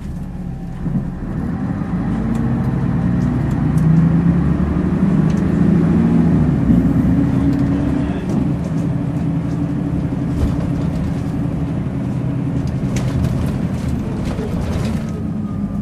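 Volvo Citybus double-decker's diesel engine heard from on board, pulling harder with its note rising and getting louder for the first several seconds, then settling to a steadier drone. Sharp rattles from the bus body come through near the end.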